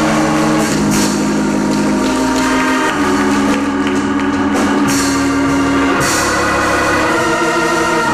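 Gospel church music: an organ holding long sustained chords that change a couple of times, with a few cymbal crashes from a drum kit.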